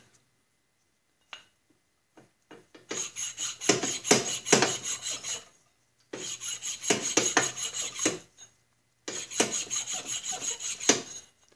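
Sandpaper on a steel block rubbed back and forth over the rusty flats of a Snapper walk-behind mower's steel shaft, a dry scraping in three spells of quick strokes with short pauses between, starting about three seconds in. It is rust being sanded off the shaft so the drive shifts more freely.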